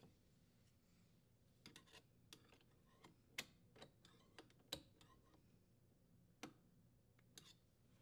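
Mostly near silence with scattered faint clicks and ticks, two sharper ones about three and a half and nearly five seconds in: a screwdriver working the metal strain relief nut on a dishwasher's electrical junction box.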